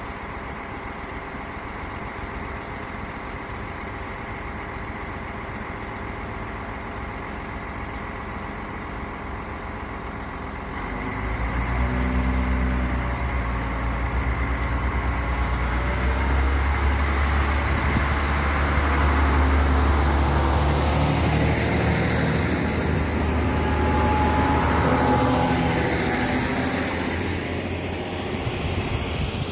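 SNCF X 73500 diesel railcar idling at the platform, then about eleven seconds in its engine opens up as it pulls away, the engine note stepping up in pitch several times through its gears as it gathers speed. A high whine rises near the end.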